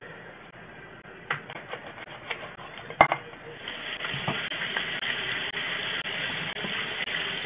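A few clicks and knocks of handling at the counter, the loudest about three seconds in. Then a kitchen faucet comes on and runs steadily into a stainless-steel sink while seeds are rinsed out of halved jalapeños under the stream.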